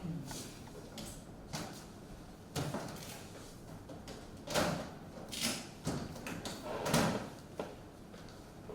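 A series of irregular knocks and clunks with some room echo, about seven in all, the loudest near the middle and about two-thirds of the way through.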